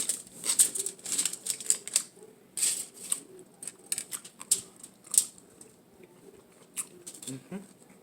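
Close-miked chewing of a bacon avocado tuna melt sandwich: irregular crisp crunches and wet clicking mouth sounds.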